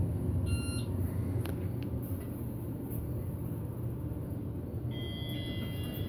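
Elevator car running between floors, a steady low rumble from the ride. A short electronic beep sounds about half a second in, and a cluster of high chime tones begins about five seconds in.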